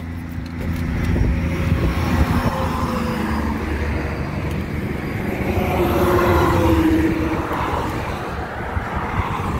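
Highway traffic passing: motor vehicles driving by at speed, tyre and engine noise swelling to the loudest pass about six to seven seconds in, its pitch falling as the vehicle goes by.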